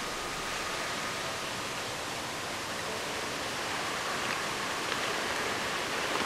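Steady, even hiss of background noise with no distinct sound standing out, and a few faint ticks in the last couple of seconds.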